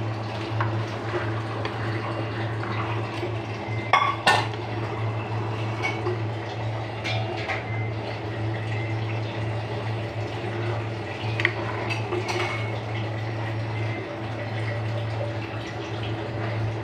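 A metal spoon clinking and scraping against a clay cooking pot as a coconut-milk prawn curry is stirred, with sharp clinks about four seconds in and a few more later. A steady low hum runs underneath.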